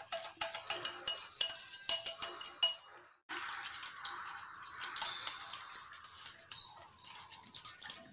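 Wire whisk beating a thin curd and gram-flour batter in a glass bowl: quick clinks of the metal whisk against the glass, about four a second. About three seconds in the sound breaks off briefly, then goes on as a softer wet swishing with only occasional clinks.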